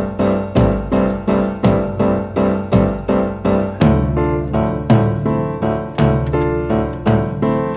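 Background music: piano or electric piano playing a steady pattern of struck notes, about two a second.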